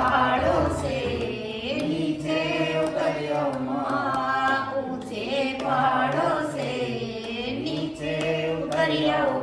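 Group of men and women singing a Hindu devotional bhajan to the goddess together, in a held, rising-and-falling melody.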